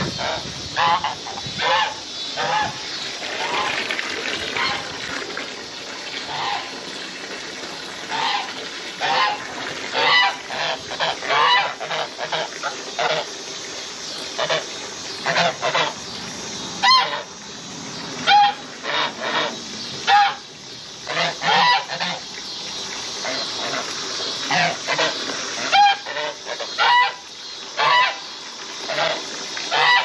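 Domestic geese honking over and over, short loud calls about once a second, some overlapping.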